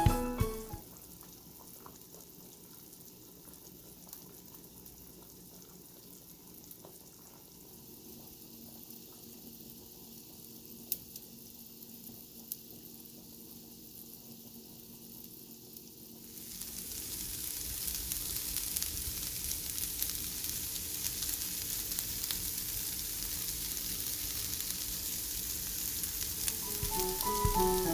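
Faint low hum, then about sixteen seconds in a steady sizzle of food frying in a pan starts up and carries on.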